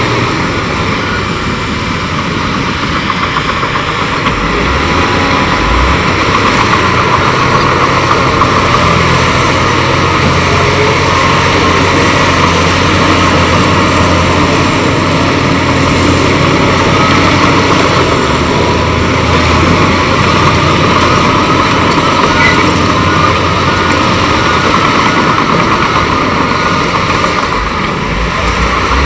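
Heavy diesel earthmoving machinery running steadily under load: the engine of a bulldozer or dump truck with the track and rock noise that goes with it.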